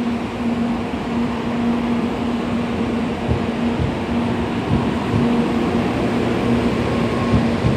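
Early N700-series Shinkansen train pulling out of the platform, its cars rolling past close by with a steady rumble over a low steady hum.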